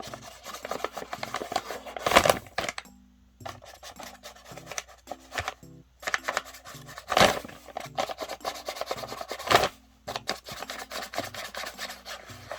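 A paper bag rustling and crinkling as a cat thrashes about in it, in bursts of a few seconds with brief pauses and a few sharp, loud crackles.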